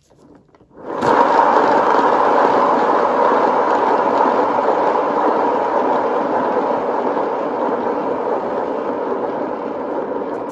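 Turntable spinning a freshly poured tile: a steady rolling noise that starts suddenly with a push about a second in and slowly fades as the turntable spins down.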